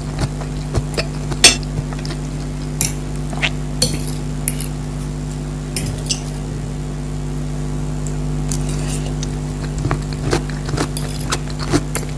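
Close-miked eating: chewing and mouth sounds with scattered clicks and clinks of cutlery against a plate, one sharper clink about a second and a half in, over a steady low hum.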